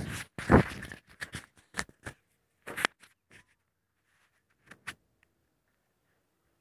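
Metal spoon scraping and clinking against a metal kadai as chopped onion and green chilli are stirred in oil. The strokes come as short, scattered clicks and stop about five seconds in.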